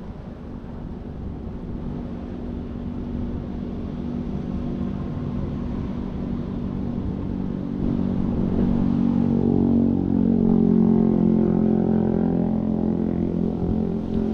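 FPV quadcopter's motors and propellers buzzing at a steady pitch, getting steadily louder and strongest from about halfway through.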